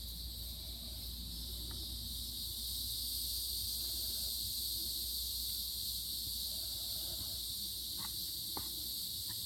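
A steady, high-pitched chorus of insects buzzing, with a few faint clicks near the end.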